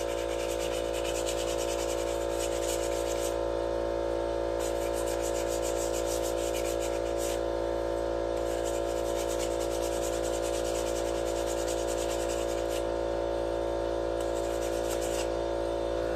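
Abrasive scrubbing of rust off a Wheel Horse tractor's ignition magnet to shine it up for a better spark, in spells of fast rubbing strokes with short pauses. A steady hum runs underneath.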